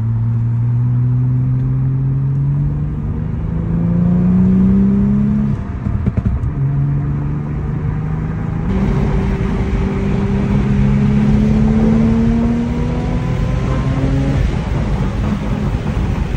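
Audi B5 S4's 2.7-litre twin-turbo V6 accelerating hard, heard from inside the cabin, its note rising in pitch through successive pulls. The revs break at a gear change about five and a half seconds in, with a brief crackle, then climb again. A long rise runs from about nine seconds in until the revs fall near fourteen and a half seconds.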